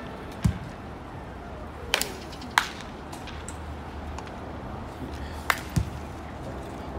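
Baseball bats cracking against pitched balls in batting practice: about five sharp cracks, two close together about two seconds in and two more about five and a half seconds in.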